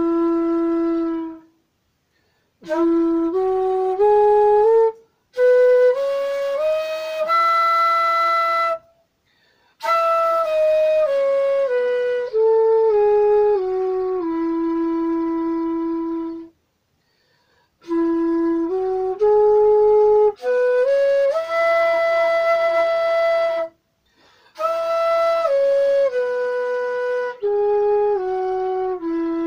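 E-base bansuri (bamboo transverse flute) playing slow stepwise phrases, each rising from its low E up about an octave and coming back down, with brief pauses for breath between phrases. The new flute is being played note by note against a tuner to show its tuning.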